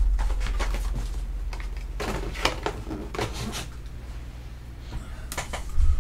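Light clicks and rustles of hands handling a trading-card box and a pen, scattered irregularly over a low steady hum.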